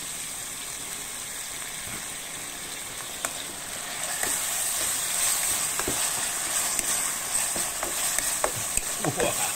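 Sambal and chai po (salted preserved radish) sizzling in hot oil in a wok, with dark soy sauce just poured in, while a spatula stirs and scrapes through it. The sizzle grows louder about four seconds in as the stirring starts.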